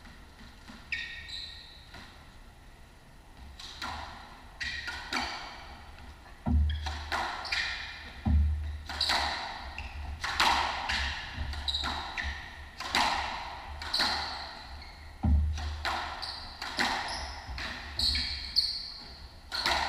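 Squash rally in a hardwood-floored court: sharp racquet strikes and ball hits on the walls, with shoes squeaking on the floor and a few heavy thuds. The play becomes busy after about six seconds.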